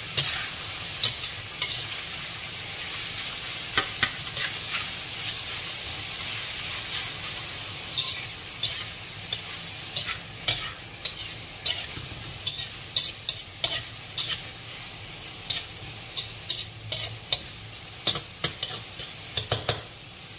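Shrimp and ground beef sizzling in a stainless steel pan while a slotted metal spatula stirs them. The steady frying hiss is broken by irregular clacks and scrapes of the spatula against the pan, which come more often in the second half.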